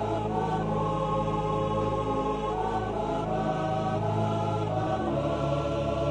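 Slow choral music: voices holding long notes over a low steady drone, the low note changing about five seconds in.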